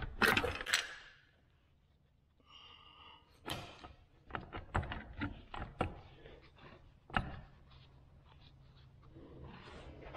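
Metal knocks, clicks and scrapes as the rear extension housing of a Muncie four-speed transmission is worked loose and slid off the case, with a brief ringing tone about three seconds in.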